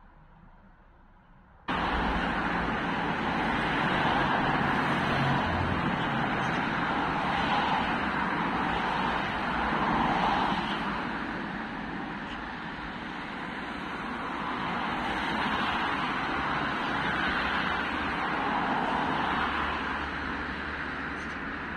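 Steady vehicle noise with a low engine hum underneath, cutting in suddenly about two seconds in and swelling and easing slowly.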